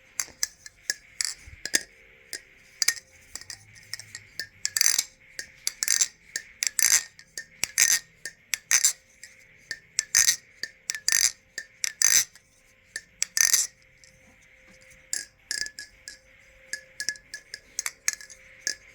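Thomas Balisong Refault butterfly knife being flipped: its aluminium handles clack and clink against each other and the blade in quick, irregular clicks, some in rapid clusters.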